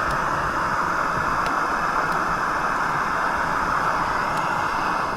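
A loud, steady hissing rush that cuts off suddenly at the end.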